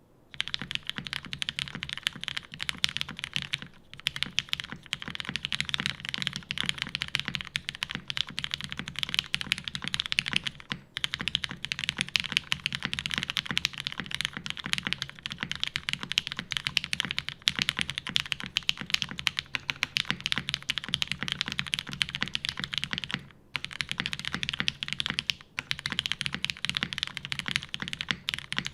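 Fast, continuous typing on a Yeri custom mechanical keyboard with an aluminum plate, lubed Hyperglide switches and GMK keycaps: a dense stream of keystrokes with a few short pauses.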